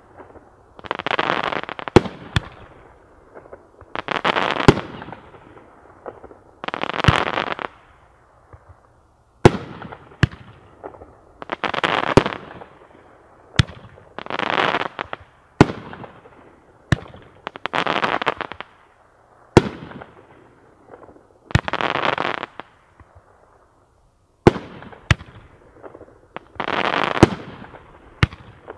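Dominator PFX574C 10-shot crackle chrysanthemum fireworks cake firing shot after shot: each sharp report of a shell is followed by about a second of dense crackling from the crackle stars, repeating every two to three seconds.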